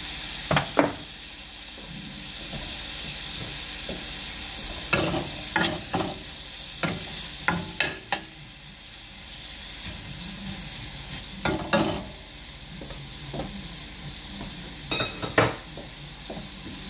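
Sliced pork and onions sizzling steadily in a stainless steel wok, with a metal ladle clacking and scraping against the pan in short bursts of stirring, about four times.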